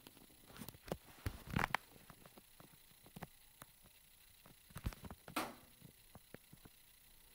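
Top-loading washing machine running quietly: faint, irregular clicks and knocks, with a louder knock about a second and a half in and a brief swish of water about five seconds in.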